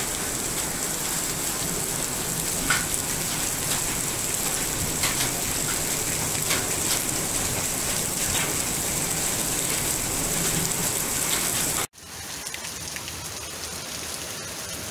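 Heavy rain mixed with hail pouring down steadily, with scattered sharp taps of hailstones striking. About twelve seconds in it cuts off abruptly to quieter, steady rain.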